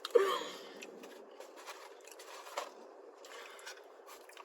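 Faint eating noises: soft crunching, chewing and mouth sounds, scattered and irregular, after a brief vocal sound at the very start.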